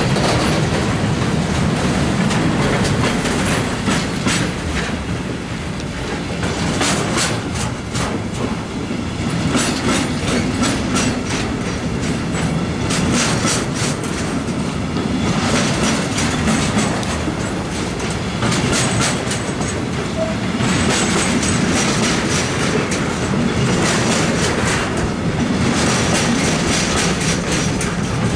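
Intermodal freight wagons carrying semi-trailers and containers rolling past close by: a steady low rumble broken by repeated sharp clacks and short bursts of high, thin metallic noise.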